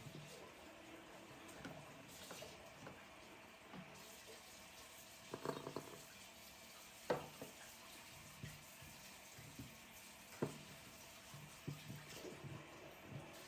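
Faint sounds of kitchen work at a sink: water from a tap and a few light clinks that ring briefly, the clearest about five, seven and ten seconds in.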